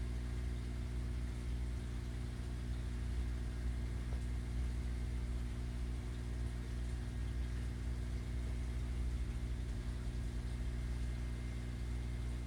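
Steady low mechanical hum, a constant drone of several tones that does not change.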